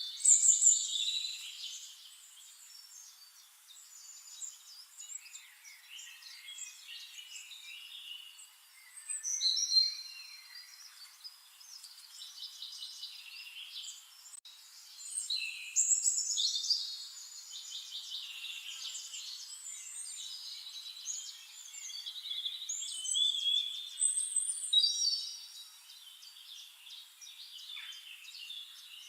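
Songbirds singing and chirping, with several overlapping high-pitched trills and phrases and louder flurries of song about every seven seconds.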